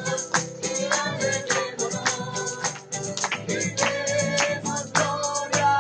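Live worship song between sung lines: instruments keep a quick, steady beat with a tambourine, over held pitched notes.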